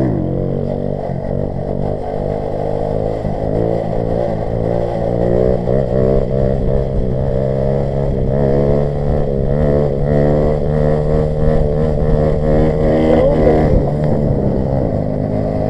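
Grom-clone mini bike's small single-cylinder four-stroke engine pulling hard under throttle during a sit-down wheelie, its pitch mostly steady but wavering as the throttle is worked to hold the front wheel up. It gets louder after the first few seconds.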